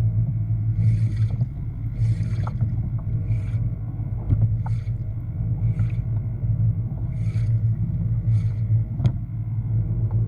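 A steady low hum, like a small motor running, with a short splashy hiss about once a second, as on a fishing kayak out on open water.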